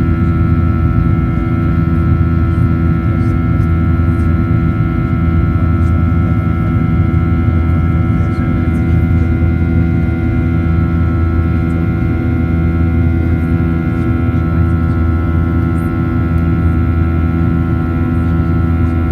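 Steady cabin drone of a Boeing 737-800 in flight: the CFM56-7B engines and airflow make a constant low hum with several steady tones over it.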